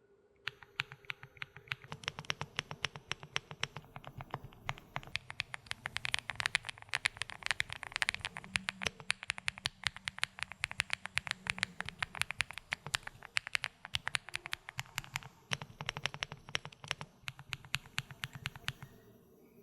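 Fast typing on an Epomaker Galaxy70 mechanical keyboard with Huano Blossom Odyssey linear switches, gasket-mounted with seven layers of acoustic dampening: a dense, rapid stream of keystrokes starting about half a second in and stopping shortly before the end.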